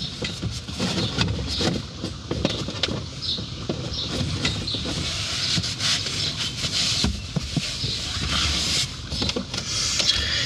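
Irregular clicks, taps and rustling from hands working on plastic dash trim and wiring in a truck cab.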